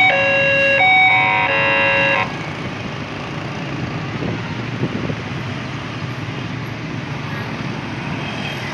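Railway level-crossing warning alarm sounding an alternating two-tone chime, which cuts off about two seconds in once the train has cleared. Steady road traffic follows, mostly motorcycles waiting at the crossing and starting to move off.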